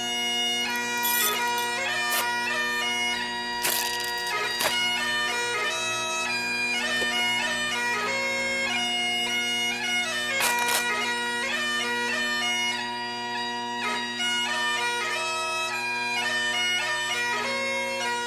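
Bagpipe music: steady drones held under a chanter melody that moves from note to note.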